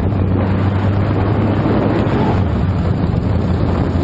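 Motorcycle engine running steadily at highway speed, with heavy wind noise on the helmet-camera microphone.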